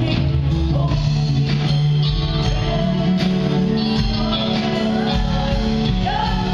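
Live church worship band playing, with electric guitar, bass, keyboard and drums, and a woman singing into a microphone over the band.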